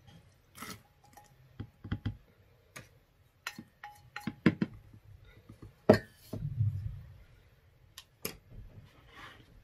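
Stainless steel mixing bowl clicking and knocking against the rim of a plastic canister and against a wooden stick scraping out the last of the liquid, with the loudest knock and a short thud about six seconds in as the bowl is set down.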